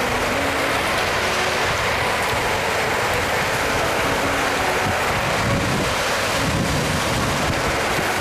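Steady rain falling, an even hiss throughout, with a low rumble about five to seven seconds in.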